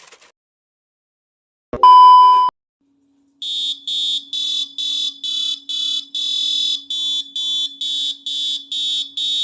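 A single loud beep lasting under a second, then a shrill alarm ringing in rapid pulses, about two a second, over a faint steady low hum.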